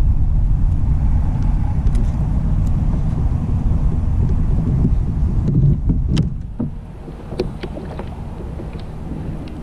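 Uneven low rumble of wind and water noise on the microphone aboard a kayak, easing about seven seconds in, with a few light clicks and taps.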